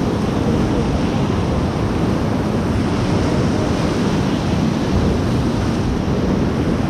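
Loud, steady rush of whitewater river rapids, with wind buffeting the microphone.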